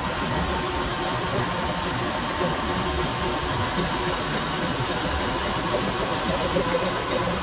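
Milling machine running steadily, its end mill cutting a slot into a metal bar clamped in a vise.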